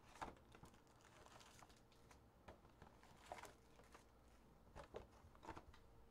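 Faint scattered taps, clicks and rustles of a cardboard trading-card hobby box being opened and its foil packs being taken out and stacked on the table.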